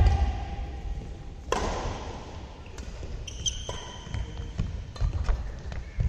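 Badminton rally: sharp racket strikes on the shuttlecock, the loudest about one and a half seconds in, with shoes squeaking and footsteps thudding on the court mat.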